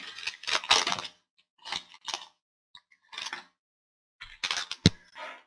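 Football trading cards being slid and flipped by hand out of a pack wrapper: a run of short, irregular papery swishes, with one sharp snap near the end.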